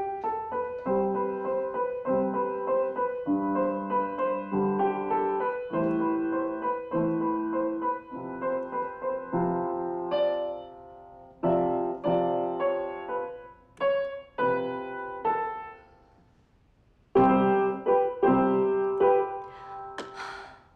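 Digital stage piano playing a slow sequence of chords and notes. The phrase halts for about a second near the end, then resumes with a louder chord before fading out.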